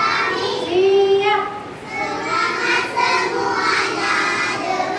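A class of young children singing together, several voices overlapping, with one note held briefly about a second in.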